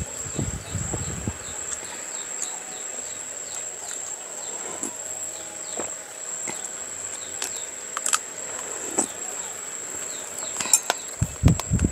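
Eating sounds, chewing and a few light clinks of a spoon against dishes, over a steady high-pitched insect drone with faint repeated chirps. The chewing is heard at the start and again near the end, with a few sharp clicks in between.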